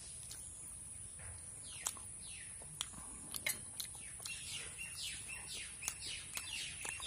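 Small birds chirping: a string of quick, falling chirps that grows busier in the second half, with a few faint clicks among them.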